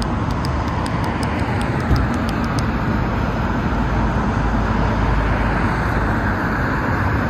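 Road traffic: passing cars' engines and tyre noise as a steady rumbling wash, with a run of light rapid ticks in the first two or three seconds.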